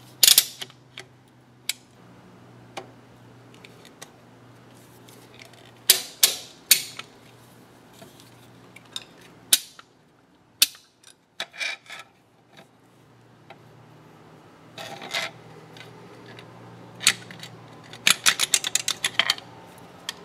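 Snap ring pliers and hand tools clicking and clinking against the steel gears and spindle inside an open engine lathe headstock, in scattered sharp clicks with a quick run of them near the end, over a low steady hum.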